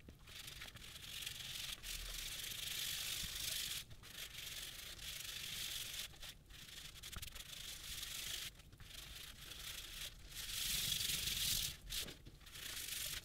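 Gloved hands rubbing conditioning cream into a sheet of dyed vegetable-tanned leather: a steady rubbing noise in long strokes, broken by brief pauses every couple of seconds and loudest near the end.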